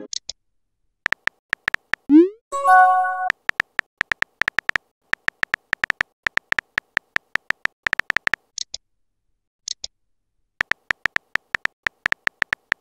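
Chat-app sound effects: rapid keyboard tap clicks, each a short beep of the same pitch, as messages are typed letter by letter. About two seconds in, a rising pop and a short chime play as a reply bubble arrives. The typing stops for about two seconds near the middle, with two brief high chirps in the gap, then starts again.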